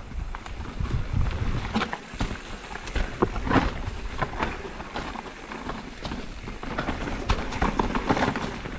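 Mountain bike clattering down a rocky trail descent: irregular knocks and rattles as the tyres hit rocks, over a steady low rumble.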